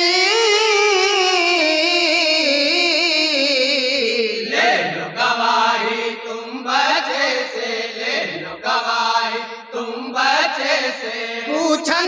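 Men's voices singing an Urdu naat unaccompanied: a long held, quavering note for the first few seconds, then shorter sung phrases.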